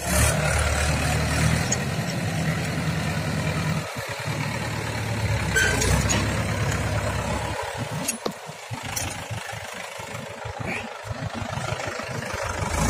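A steady low engine hum, like a motor idling, with a few sharp clicks in the middle.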